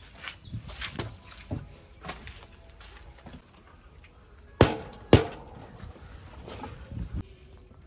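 Irregular knocking and clicking, with two loud sharp bangs about half a second apart a little past the middle.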